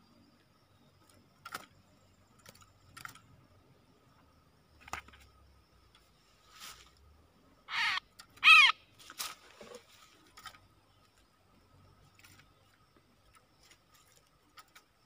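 A bulbul caught in a wire trap cage giving two loud, harsh squawks as it is grabbed, with sharp clicks and rattles from the wire cage being handled before and after.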